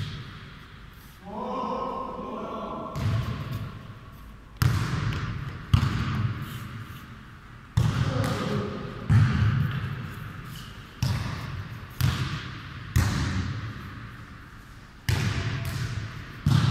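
A football being kicked and bouncing on the floor of a large sports hall during a futnet rally: about ten hard thuds at uneven intervals, each ringing on in the hall's echo.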